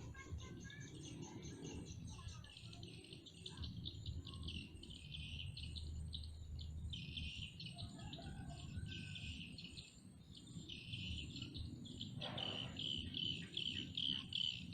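Insects and birds chirping continuously in fast, stuttering trills, with a thin steady high whine over them.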